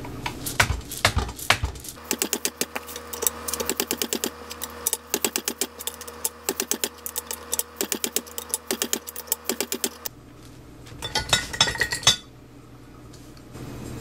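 Ratchet wrench clicking in quick runs as it turns the nut on a homemade all-thread puller, drawing the axle shaft out of a Dana 44 axle housing.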